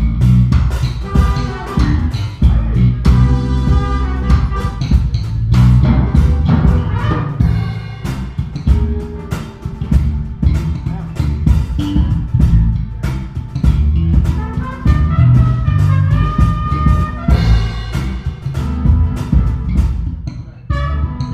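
Live band playing an instrumental number on drum kit and electric guitar, the drums striking in a steady beat under strong low notes and held melody tones; the music thins out briefly near the end.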